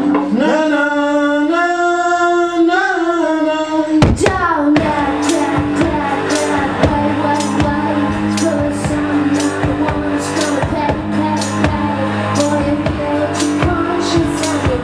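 Live garage-rock band playing. It opens with held, bending melodic notes, then crashes in about four seconds in with drums and electric guitar keeping a steady beat.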